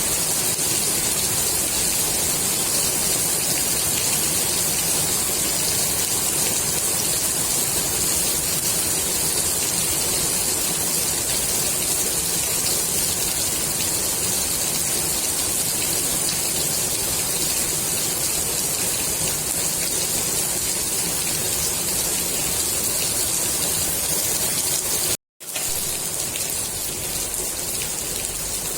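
Steady rain falling on a swimming pool's water, a dense, even hiss of drops. About 25 seconds in it cuts out to silence for a moment, then carries on a little quieter.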